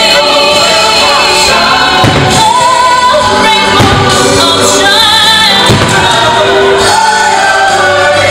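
Fireworks-show soundtrack: a choir singing over music, loud and continuous, with a few firework bursts booming underneath.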